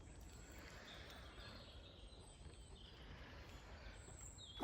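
Near silence: faint outdoor background noise with a few faint, short, high bird chirps.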